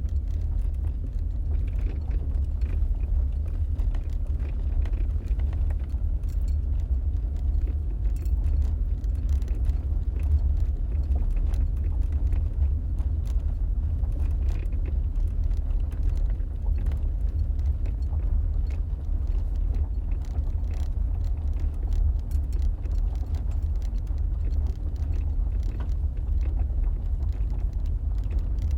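Steady low road and engine rumble of a moving car, heard from inside the cabin, with faint scattered ticks over it.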